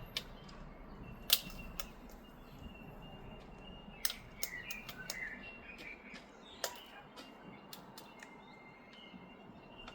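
Cockatoos at food making sharp, irregular clicks and taps a second or more apart, with a few faint bird chirps around the middle.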